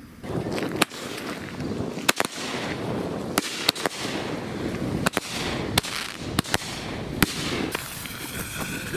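Fireworks going off: repeated sharp bangs, about ten, over a continuous crackle.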